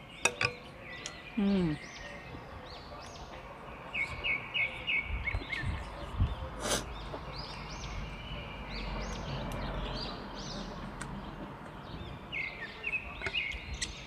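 Songbirds singing in the background, many short chirping phrases repeated and overlapping, with a quick run of notes about four seconds in. A spoon clinks against the glass dish a few times, most sharply about two-thirds of the way through.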